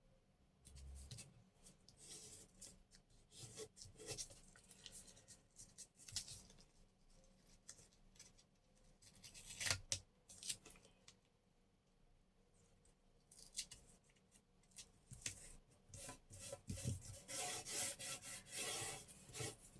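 Paper and masking tape being handled: faint, irregular crinkling and rubbing as tape is worked along the edge of book pages, with a louder rustle about halfway through.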